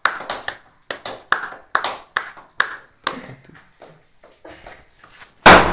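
A small group clapping hands in rhythm, about two to three claps a second, fading out after about three seconds. Near the end a single loud bang, a party popper going off.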